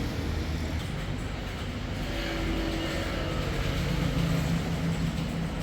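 Steady low rumble of a running engine or traffic, with a low hum that swells a little in the middle and no key clicks.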